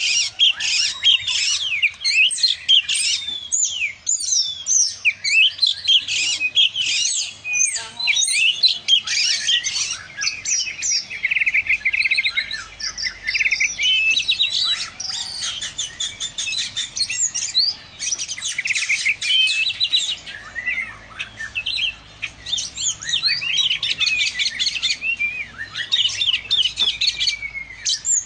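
Oriental magpie-robin (kacer) singing continuously: a fast, varied stream of whistled notes and glides, broken by a few rapid trills and only short pauses.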